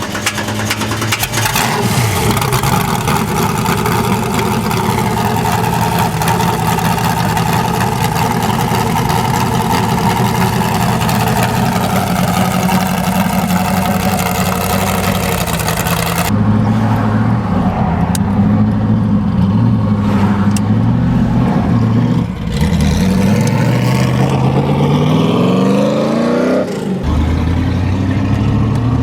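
Ultima GTR's V8 engine running loudly. For about the first half it is under heavy throttle, with a harsh, noisy exhaust note. Then there is a sudden change to a steady idle, broken near the end by a throttle blip whose pitch climbs and falls back.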